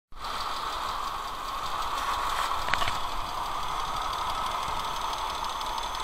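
Mercedes-Benz M112 V6 engine idling with a clattering tick from its hydraulic lifters, the knock that the owner puts down to old oil.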